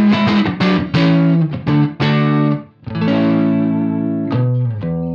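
Single-coil electric guitar strummed through the Universal Audio UAFX Lion '68 Super Lead amp pedal in its Super Bass mode, giving a driven Plexi-style amp tone. A run of chords breaks off briefly about two and a half seconds in, then one chord is held for over a second and another is struck near the end.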